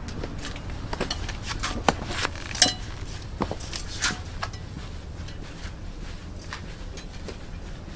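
Footsteps in 7-inch stiletto platform boots: sharp heel clicks on a hard floor over the first four or five seconds, then softer, sparser steps on carpet.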